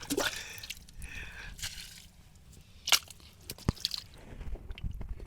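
Wet mud and water squelching and dripping as the mud is worked through by hand to find buried fish, with scattered small clicks and one sharper click about three seconds in.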